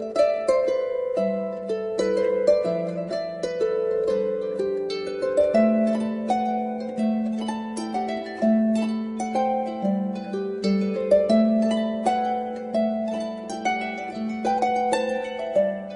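Background music on solo harp: a flowing run of plucked notes over low held notes.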